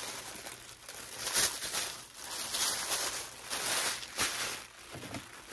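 Tissue paper rustling and crinkling in irregular bursts as it is handled and pressed down into a planter.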